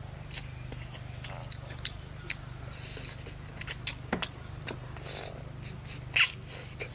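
Close-up mouth sounds of someone eating a braised pig's trotter: scattered wet clicks of chewing and lip-smacking, with louder smacks about four and six seconds in.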